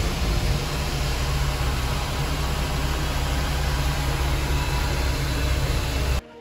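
Safari bus running, heard from inside the cabin: a steady low engine rumble with hiss, cutting off abruptly near the end.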